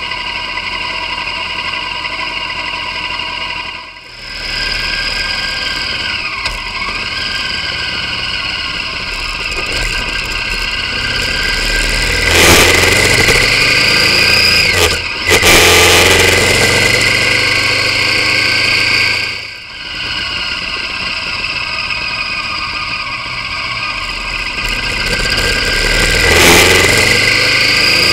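V-twin motorcycle engine running on the road, picked up by a camera mounted on the bike, with rises in pitch as it accelerates, loudest in the middle. The sound drops out briefly twice where separate clips are joined.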